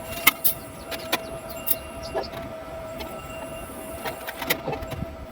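A steady hum with scattered clicks and knocks over it.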